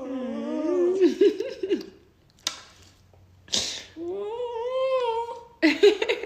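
A pet animal calling: wavering, whining vocal sounds for about the first two seconds, then a long call that rises and holds steady. A short breathy burst falls between them, about three and a half seconds in.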